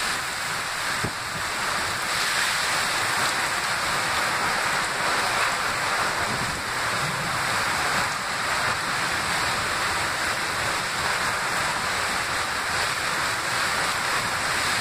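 Hurricane Maria's wind driving torrential rain: a steady, dense hiss of rain and wind.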